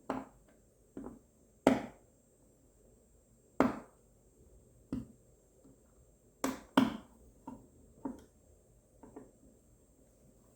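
Screwdriver and outlet faceplate giving about ten sharp clicks and knocks at irregular intervals as the faceplate is screwed onto a wall outlet.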